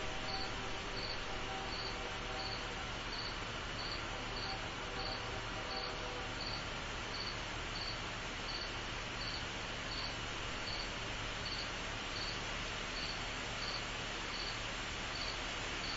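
A cricket chirping in an even rhythm, about one and a half short high chirps a second, over a steady hiss of background noise.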